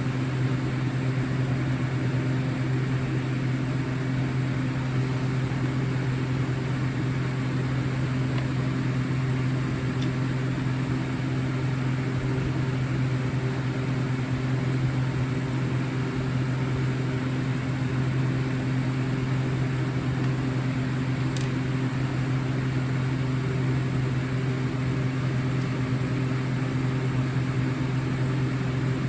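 A steady low machine hum with a few even, unchanging tones in it, with a couple of faint clicks.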